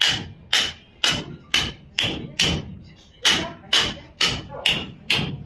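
A hand mallet knocking in a steady rhythm, about two sharp blows a second with a brief pause in the middle, each with a short ringing tail: a practitioner tapping a tool held against a patient's lower back in a percussion treatment.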